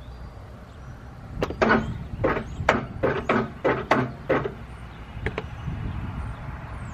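Riding lawnmower's small engine being cranked slowly by its starter on a weak battery: about seven labored turning strokes, roughly two a second, and it does not catch.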